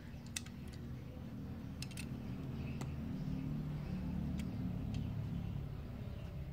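A low rumble that swells over the middle few seconds and fades again, with a few light clicks and taps as a die-cast toy car is turned over in the fingers.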